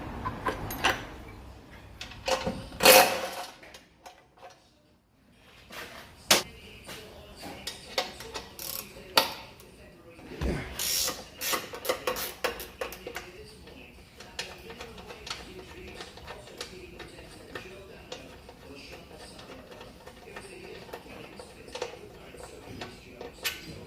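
Hand tools working bolts on a car's gearbox bracket: ratchet clicking and metal tools clinking and knocking at irregular intervals, with a louder clatter about three seconds in.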